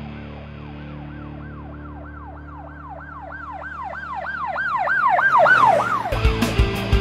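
A siren wail that swoops up and down in pitch about three times a second, growing steadily louder, over the fading held tones of background music. About six seconds in it breaks off and rock music with drums and guitar cuts in.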